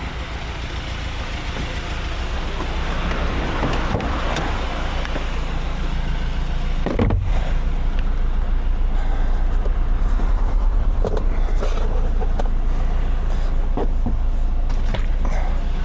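A truck's engine running steadily, its rumble growing louder over the first few seconds, with a single knock about seven seconds in.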